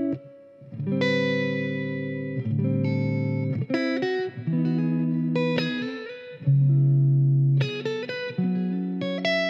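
Squier Telecaster Cabronita electric guitar played clean on its neck Fidelitron pickup through a Marshall AVT Tribute 50 amp: a slow run of ringing chords and single notes, each held a second or two, with the loudest chord about six and a half seconds in. The tone is soft and fat.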